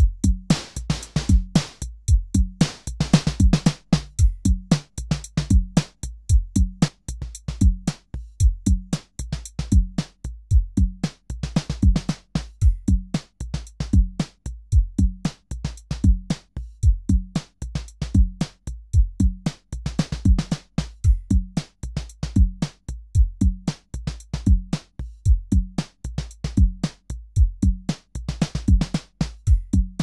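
Korg drumlogue hybrid drum machine playing a steady looped beat of kick, snare-like hits and hi-hat clicks, its drum sounds being tweaked by hand as the pattern runs.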